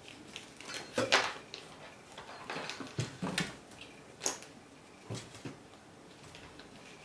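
Burmese kittens scrambling over a hard-shell school backpack: irregular scratches, rustles and light knocks of paws and claws on the backpack's shell and fabric, the loudest bump about a second in.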